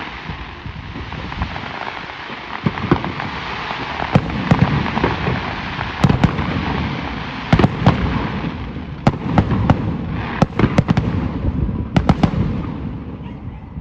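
Aerial fireworks display: a steady dense hiss and crackle of bursting shells, punctuated by many sharp bangs that come in quick clusters, densest in the second half.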